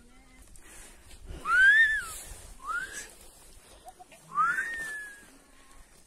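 A shepherd whistling three times to his flock of sheep: a whistle that rises and falls, a short rising one, then a longer one that rises and slowly falls away.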